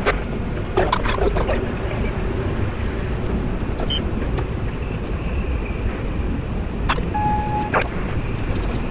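Steady low rumble aboard a large container ship under way, with a few sharp clicks around a second in, and a short beep about seven seconds in.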